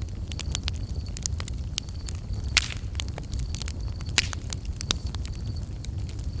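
Wood campfire crackling and popping, with two louder pops about two and a half and four seconds in, over the low rumble of the flames. Crickets chirp in short high trills that repeat through it.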